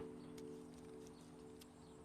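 Soft background score: a quiet sustained chord of held low notes that slowly fades away.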